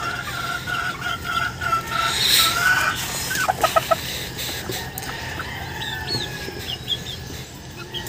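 Chickens clucking: a steady, pulsing call for the first couple of seconds, then a quick run of four clucks about three and a half seconds in, with faint high chirps after.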